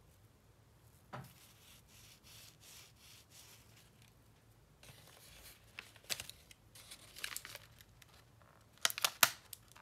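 Flaky puff pastry crackling softly as it is handled, then a clear plastic pastry tray crinkling and clicking, with the loudest sharp clicks near the end.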